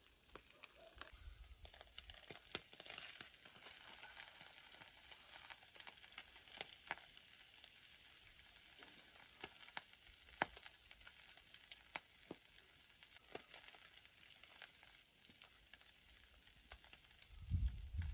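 Food frying in a pan: a faint, steady sizzle with scattered sharp pops. A louder low rumble comes in just before the end.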